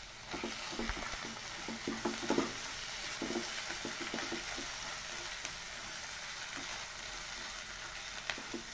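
A paste of ground cashew, melon seed and poppy seed sizzling steadily in oil in a non-stick frying pan as it is stirred with a wooden spatula. Light taps and scrapes of the spatula against the pan come mostly in the first half.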